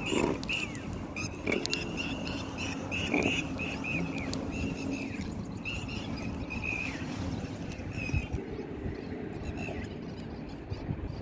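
A small animal's short, high chirping calls, repeated several times a second, stopping about eight seconds in, over a steady low outdoor background noise.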